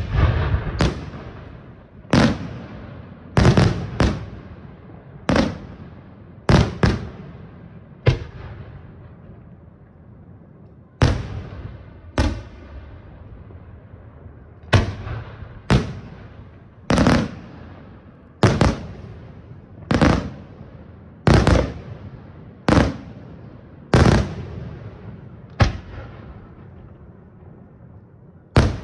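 Aerial firework shells from a Senatore Fireworks display bursting in a steady sequence, one or two loud bangs a second, each fading away after it. There is a pause of a few seconds about a third of the way in, then the bangs resume.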